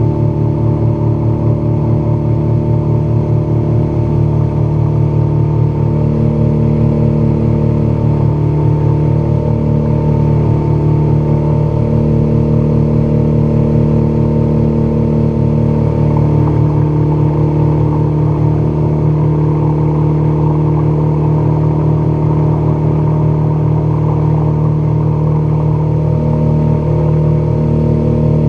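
Outboard motor running steadily at cruising speed, driving a small fishing boat, with water rushing and spraying along the hull.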